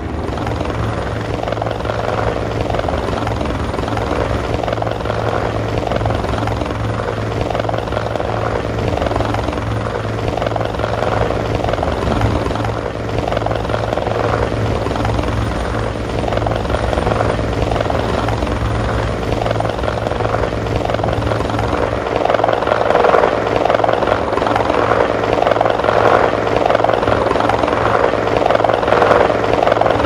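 Helicopter flying close by: the steady, deep, rhythmic beating of its rotor blades over engine noise, growing louder about two-thirds of the way through.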